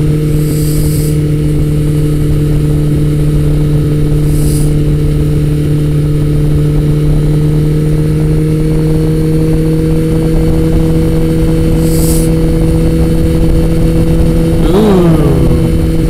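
Motorcycle engine running at a steady cruising speed with an unchanging pitch, heard through a helmet-mounted camera's microphone along with steady wind rush.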